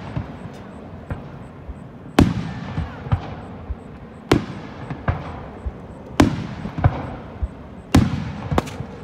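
Aerial firework shells bursting: five loud booms roughly two seconds apart, each trailing off in an echo, with smaller pops and crackles between them.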